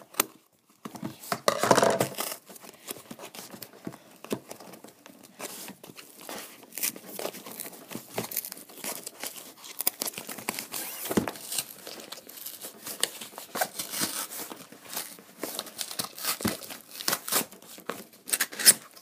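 Cardboard shipping package being torn open by hand, tape and packing material ripping and crinkling in irregular bursts, with the loudest rip about two seconds in.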